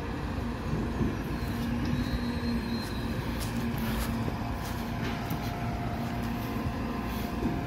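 MAN TGM 26.340 recycling truck's six-cylinder diesel engine running steadily while its side-loader arm lowers, a constant rumble with a steady hum over it.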